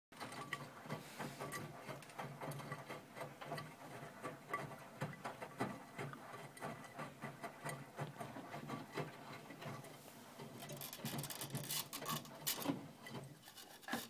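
Miele W 531 front-loading washing machine in its main wash: the drum motor hums while wet laundry tumbles and splashes in the turning drum, with a constant patter of small clicks and knocks. Near the end the clatter grows brighter, then the drum comes to rest.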